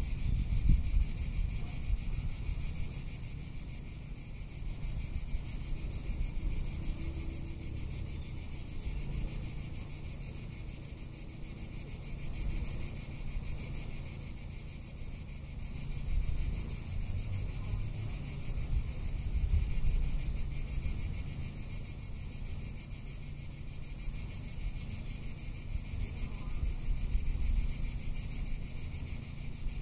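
Cicadas singing, a steady high pulsing buzz, with gusts of wind rumbling on the microphone that rise and fall.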